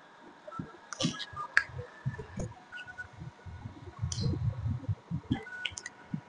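Scattered clicks and soft knocks from a lectern microphone being handled as a reader takes her place, with a faint steady tone from the PA underneath.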